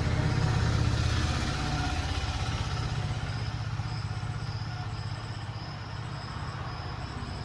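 A vehicle engine running at low revs, a steady pulsing rumble that slowly grows quieter. Crickets chirp faintly in a repeating pattern.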